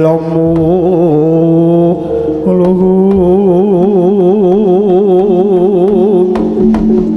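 Jaranan gamelan music: a wavering melody of long held notes over the ensemble, with drum strokes near the end.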